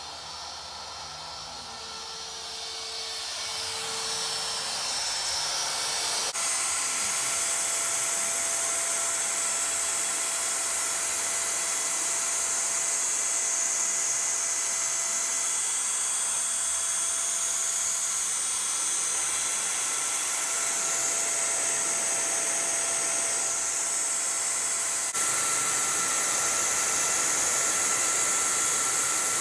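X-Carve CNC router's spindle whining at high pitch as its end mill cuts circles into a thin wooden board, growing louder over the first few seconds. Under it, the stepper motors hum faintly, rising and falling in pitch as the machine traces the curves.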